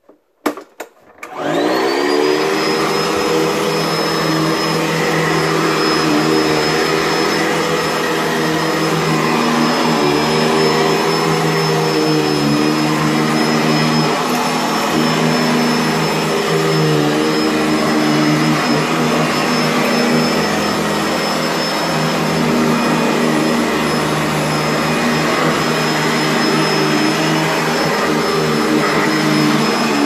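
Sanitaire SC679J upright vacuum switched on with a click about a second in. Its motor spins up quickly with a rising whine, then runs steadily as it is pushed over carpet.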